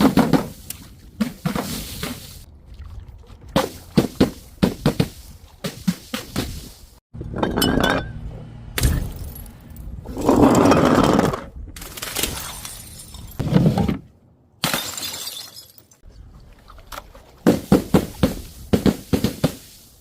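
Glass bottles and jars smashing one after another, each break a sharp crash followed by tinkling shards. The breaks come in separate clips with abrupt cuts between them, and a longer, denser crash about halfway through.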